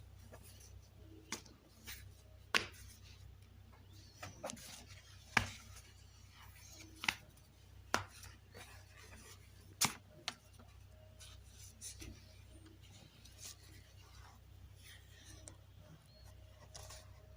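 Scattered sharp clicks and knocks of kitchen utensils at work while homemade egg noodles are being made, about six louder ones at uneven intervals among fainter taps, over a low steady hum.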